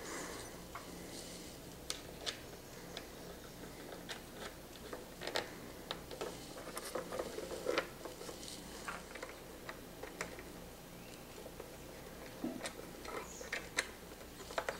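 Scattered small clicks and rubbing as fingers handle a headlight bezel ring and lens, threading small metal acorn nuts onto its screws by hand, over a faint steady hum.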